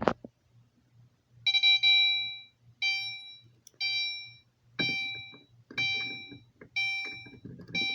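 Fire alarm horn on its chime setting, sounding a repeated chime about once a second after a pull station has been pulled. Each tone fades before the next one. A click comes right at the start, and there is some rattling in the later part.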